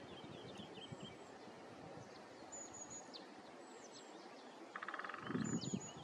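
Small wild birds calling faintly: rows of quick repeated chirps and a few high whistles sliding down in pitch, with a short buzzing trill about five seconds in. A brief low rumble comes in near the end.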